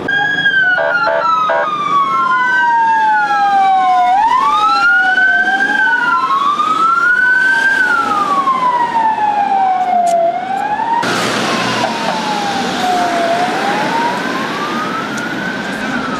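Emergency-vehicle sirens wailing, two slow rising-and-falling wails overlapping out of step with each other. About eleven seconds in, a louder rushing noise comes in under a single remaining wail.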